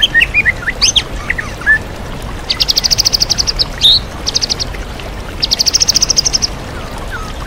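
White-rumped shama (murai batu) singing: a string of quick varied chirps, then three fast trills of evenly spaced high notes, about a dozen notes a second, over the steady rush of a waterfall.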